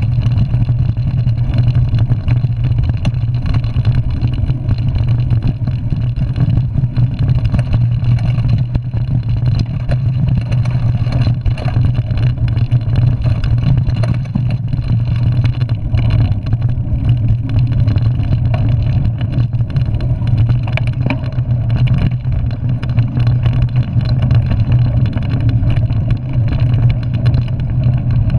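Steady, loud rumble of wind and trail vibration picked up by a camera on a mountain bike's handlebars while riding fast down a dirt trail.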